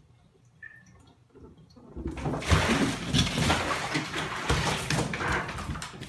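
A cat falling into a partly filled bathtub about two seconds in, then splashing and thrashing in the water as it scrambles out.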